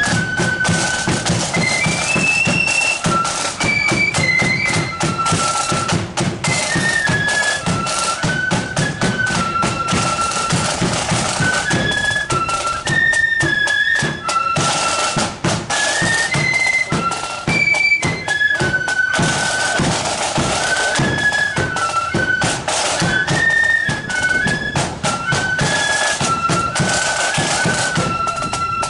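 Marching flute band playing a tune: flutes carry a stepping melody over steady snare and bass drum beats.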